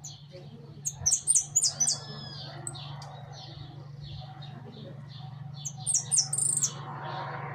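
Saffron finch calling: two quick runs of loud, sharp, very high notes, about a second in and again near six seconds, over softer chirps repeating a few times a second. A low steady hum runs underneath.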